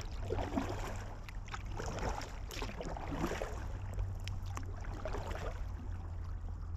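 Kayak paddle strokes in calm water: the blades dip and pull through with a swish and a drip about every second, over a steady low rumble.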